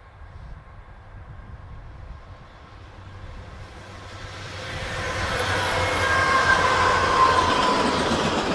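Freight train of diesel locomotives and tank cars approaching and passing close by. Engine and wheel-on-rail noise builds steadily and is loudest from about halfway through, with faint high ringing tones over the rumble.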